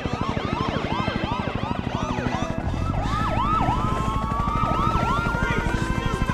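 Police car sirens: fast yelping sweeps, then a slower wail that rises over a few seconds, over a rapid low pulsing.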